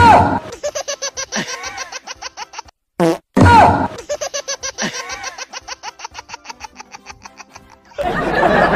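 Comedy fart sound effect: a sharp blast that trails into a rapid rattling run of about ten pulses a second, played twice, the second time about three seconds in. A burst of music cuts in near the end.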